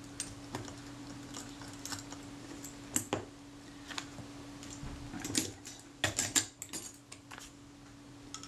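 Light metallic clicks and taps of small tools against the parts of a Kodak Retinette II film camera as a front panel is worked loose and lifted off, with a denser run of louder clicks about five and six seconds in. A faint steady hum runs underneath.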